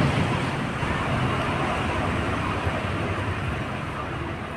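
Steady background noise: a rushing hiss with a low rumble, easing slightly toward the end.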